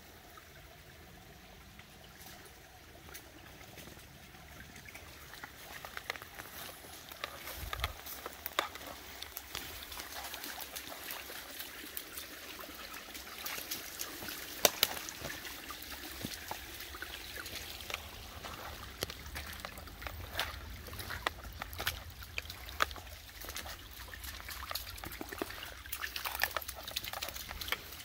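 Feet and a dog's paws splashing and stepping through a shallow, trickling creek, with many short sharp ticks of steps on wet stones. Quieter for the first few seconds, then the steps come thick and steady.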